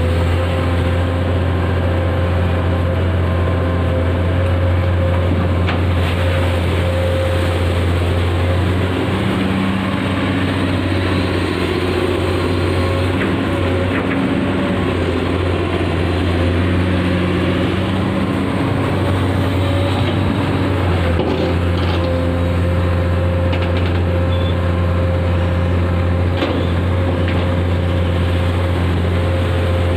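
Komatsu PC200 amphibious excavator's six-cylinder diesel engine running steadily under working load, with a low hum and a steady higher tone. Its note shifts a little partway through as the boom and bucket work.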